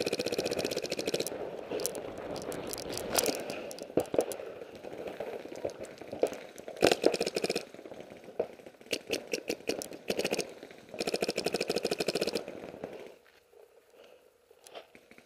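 Paintball markers firing in rapid bursts of shots, with single pops in between; the firing dies away about thirteen seconds in, leaving a few faint pops.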